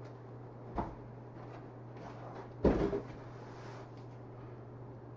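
Large cardboard TV box being handled and shifted: a light knock about a second in and a louder thump near the middle, over a steady low hum.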